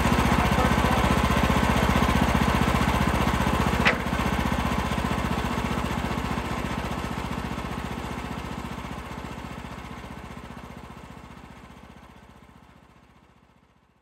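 The Kohler gasoline engine of a Woodland Mills HM126 band sawmill running steadily without cutting, with one sharp click about four seconds in. After the click the sound fades out gradually until it is almost gone at the end.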